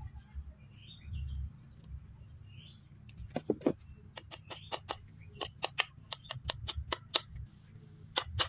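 A series of sharp, light hammer taps, a few a second, starting about three seconds in and coming faster toward the end, as a pin is tapped into the trigger mechanism of a wooden speargun stock. Faint bird chirps sound in the first half.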